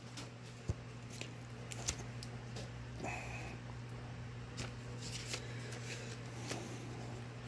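Paper novelty banknotes being handled and shuffled: soft rustling with scattered light clicks and taps, over a steady low hum.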